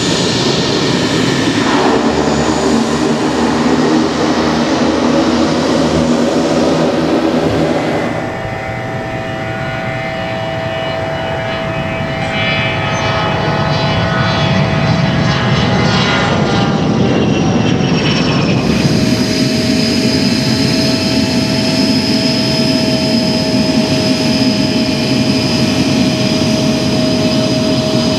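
Taxiing aircraft turbine engines. First a Pilatus PC-12 single-engine turboprop runs close by with its propeller turning, a loud steady noise. From about eight seconds in, a steady whining turbine note takes over as a business jet and the turboprop taxi nearby, with two abrupt shifts in the sound.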